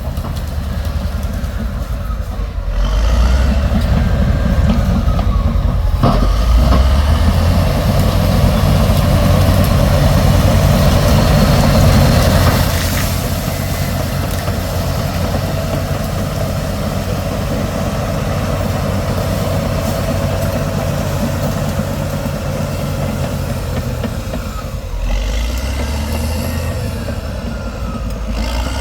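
Large 200 hp crawler bulldozer running under load as it tracks along a narrow wooded trail. The engine gets louder a few seconds in, then drops back to a steady run at about the halfway point.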